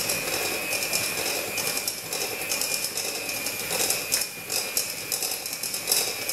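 Electric hand mixer switched on and running steadily, its motor whining and its beaters rattling in the bowl as they whip whipped-topping powder with cold water into cream.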